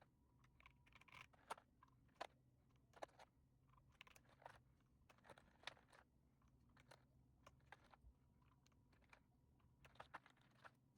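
Typing on an Akko M1 V5 mechanical keyboard fitted with EPOMAKER Bluebird switches: quiet, irregular key clacks, a few each second.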